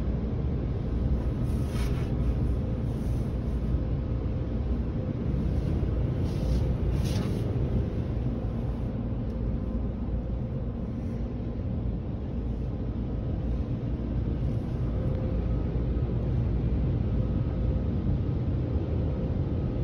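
Automatic tunnel car wash heard from inside the car's cabin: a steady low rumble of the wash machinery and water spraying over the car, with brief louder hisses of spray about two and seven seconds in.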